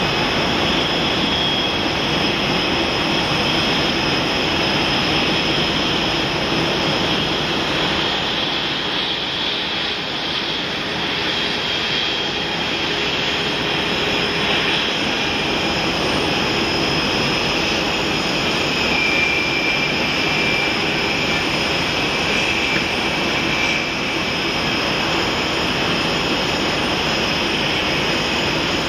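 Jet airliner engines running at taxi power: a steady rush of noise with a thin high whine on top.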